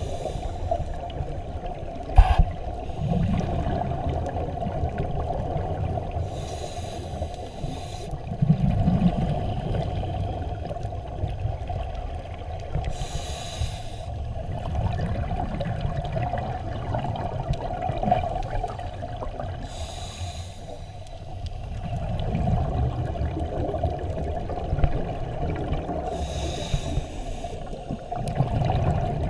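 Scuba diver breathing through a regulator underwater: a hiss on each inhale followed by a low gurgle of exhaled bubbles, about every six to seven seconds, over a steady hum. A sharp click about two seconds in.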